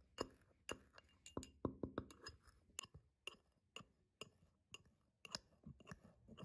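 Brass pestle striking and grinding in a small brass mortar, pounding saffron threads: a quick series of light metallic clinks, each ringing briefly, about two to three a second.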